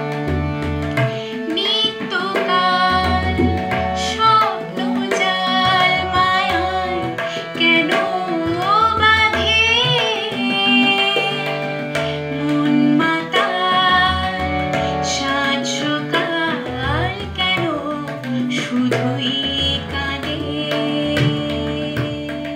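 A woman singing a Bengali song in a wavering, ornamented voice, accompanying herself on a harmonium that holds steady chords under the melody, with tabla drum strokes keeping the rhythm.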